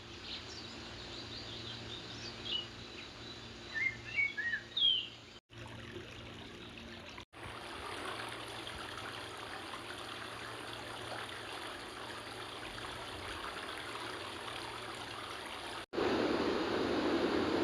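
Small birds chirping in short quick phrases over the steady rush of a mountain stream. After about five seconds the chirps stop and only the running water continues. A louder, fuller rush of water follows a brief cut near the end.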